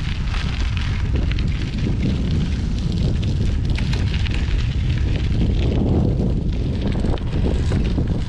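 Wind buffeting an action camera's microphone on a moving gravel bike: a steady low rumble, with a constant crackle of 38 mm Schwalbe G-One Ultrabite tubeless tyres rolling over loose gravel.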